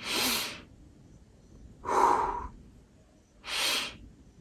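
A man breathing deeply and audibly into the microphone, demonstrating a calming breath exercise: three separate breaths, each about half a second long and spaced a second and a half to two seconds apart. The middle breath is the loudest, a breath let out through the mouth.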